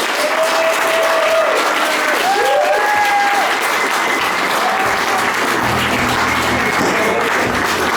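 Audience applauding with cheers and whoops at the end of a live band's set. Low steady notes of music come in underneath about halfway through.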